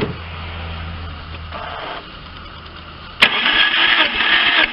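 Starter motor cranking a Lifan car's four-cylinder engine with its spark plugs removed, for a compression test. A low steady hum comes first; about three seconds in, a much louder, even whirr of the cranking starts and carries on.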